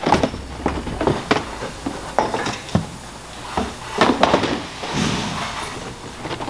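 Plastic car body parts, a bumper cover and curved liner pieces, being pulled out of cardboard boxes and handled: an irregular string of knocks, scrapes and cardboard rustles, loudest about four seconds in.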